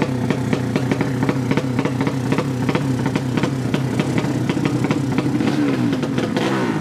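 A 200cc drag-racing underbone motorcycle engine idling with an uneven, pulsing beat. The revs swing up and down briefly near the end.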